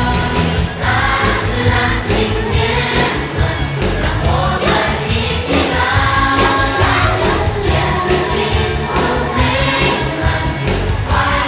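A song with a group of voices singing over a steady beat, at a loud and even level.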